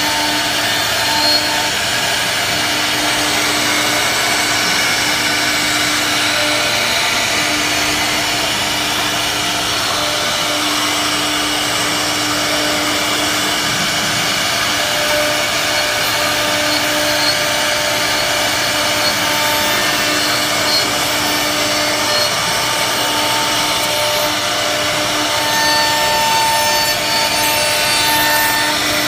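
CNC router spindle cutting into wood: a steady cutting noise with a whine that fades in and out every few seconds.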